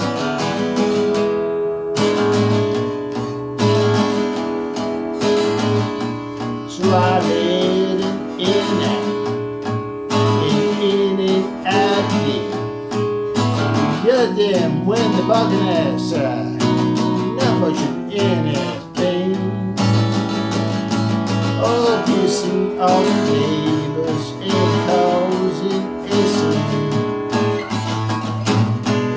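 Acoustic guitar strummed in a steady rhythm, with a man's voice singing along in places.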